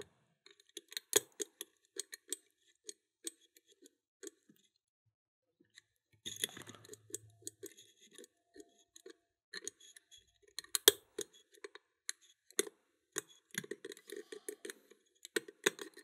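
Small, irregular metallic clicks and light scrapes of a thin wire pick lifting and probing the levers of an Anchor Eskilstuna eight-lever lock under tension. The levers are springy and nothing is binding.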